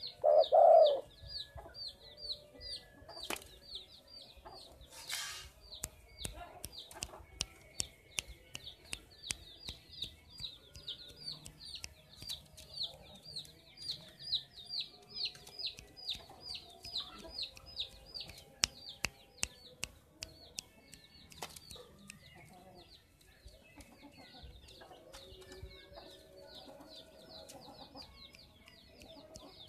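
A spotted dove's coo ends about a second in. Then come high, short, falling chirps from another bird, repeated about three times a second, with scattered sharp clicks.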